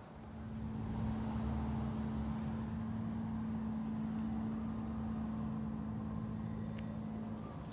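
Crickets chirping in a steady pulsing trill, over a steady low hum that comes in just after the start.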